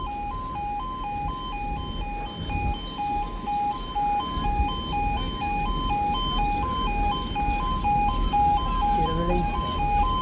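Level crossing audible warning alarm sounding continuously: a two-tone yodel switching between two pitches a few times a second, the signal that the barriers are down and a train is due.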